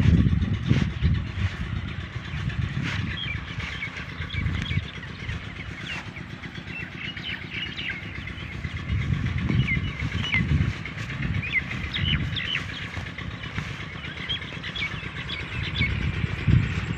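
Low engine rumble that swells and fades several times, like motor vehicles passing, with birds chirping repeatedly over it.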